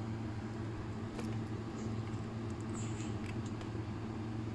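Faint scattered clicks and scratches of a small screwdriver tip working inside the Magforce brake dial of a Daiwa baitcasting reel's side plate, adjusting the dial's detent spring, which is set too tight. A steady low hum runs underneath.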